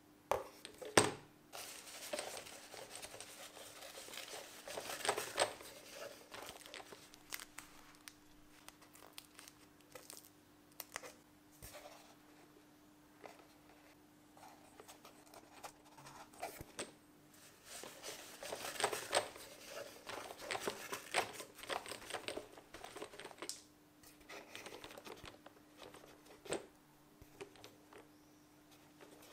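Hands rummaging in a cardboard box of 18650 lithium-ion cells: cardboard rustling and crinkling with light clicks of the metal-ended cells knocking together, busiest in the first few seconds and again about two-thirds of the way in. A faint steady hum runs underneath.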